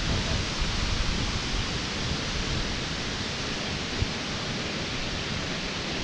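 Steady, even rush of falling water from a large waterfall, the Middle Falls of the Genesee River.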